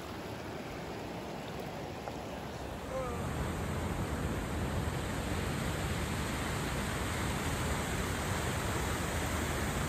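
Steady rush of river water. About three seconds in it grows louder and deeper as the sound of water pouring over a low weir takes over.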